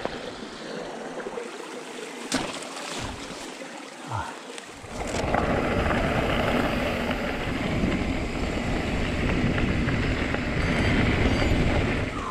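Wind rushing over the microphone of a bike-mounted camera while riding a gravel track; it turns loud and steady about five seconds in. Before that there is quieter outdoor noise with a couple of clicks.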